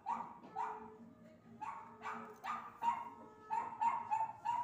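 Dog barking repeatedly, about ten short barks: two, a pause of about a second, then a quicker run of eight.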